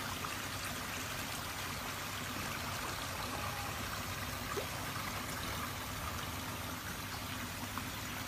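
Steady running water, pouring and trickling into a koi pond.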